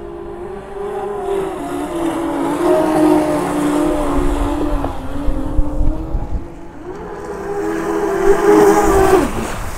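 Twin electric motors (750KV) of a 2.35 m (94-inch) MHZ RC speedboat running at speed, a loud whine whose pitch wavers up and down with the throttle. Near the end the whine drops sharply in pitch and falls away as the boat throttles off.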